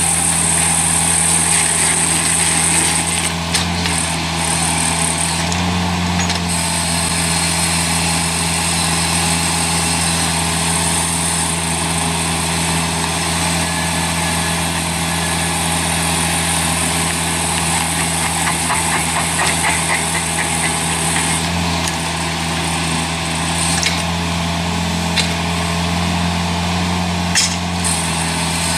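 Heavy machine's engine running steadily under load, with a steady high whine and a few light knocks.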